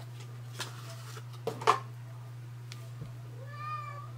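Sharp clicks and light rustles of an eyeshadow palette and its packaging being handled, the loudest about one and a half seconds in, over a steady low hum. Near the end a domestic cat meows once, a short call rising and falling in pitch.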